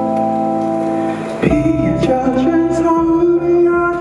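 Live rock band music: sustained keyboard chords, then about a second and a half in a drum hit and cymbals come in and a melody line starts moving over the held chords.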